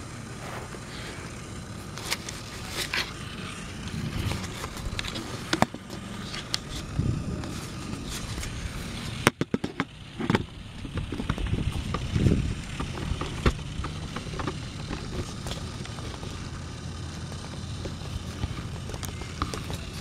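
Battery-powered Mattel Thomas & Friends toy train engine's small electric motor running steadily as it pulls a truck along plastic track, with clicks and rattles from the wheels on the track. A cluster of sharp knocks and clatter comes about nine seconds in.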